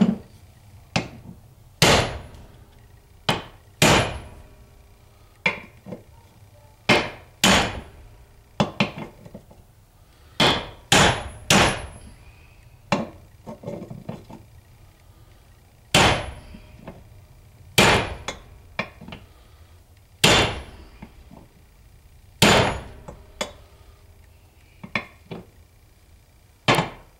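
Hammer blows on a steel bar driver, tapping a front input shaft bearing down into the aluminium front housing of an NP208 transfer case until it sits flush. A series of sharp metallic strikes, irregularly spaced at about one a second, each with a brief ring.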